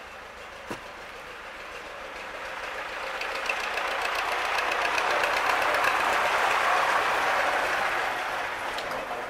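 A vehicle passing by: a rushing road noise that swells over several seconds and fades away near the end. One short click sounds about a second in.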